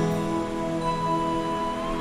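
Soft instrumental background music with slow, held chords.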